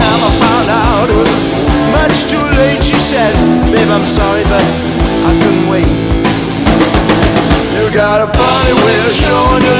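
Early-1980s hard rock band recording playing at full tilt: drums and bass under a lead guitar solo full of wide vibrato and pitch bends.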